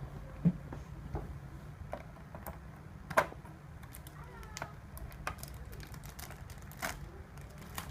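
Scattered light clicks and taps from handling a boxed meal's packaging and food, the sharpest about half a second in and just after three seconds.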